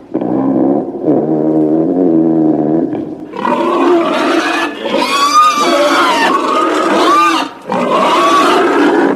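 Angry-monster sound effect: a low, pitched growling grunt for about three seconds, then loud screaming roars whose pitch wavers up and down, broken by two short gaps.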